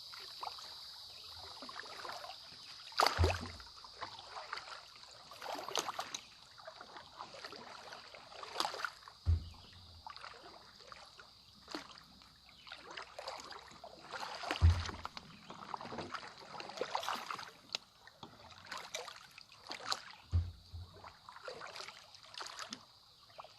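Paddles dipping and splashing in pond water as a rowboat is paddled, with a heavier knock about every five or six seconds, four in all.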